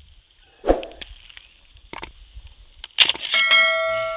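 A large crisp appalam (papad) cracking as it is snapped apart by hand: a few sharp cracks, spread over about three seconds. Then a bright bell-like chime starts a little after three seconds in and rings on.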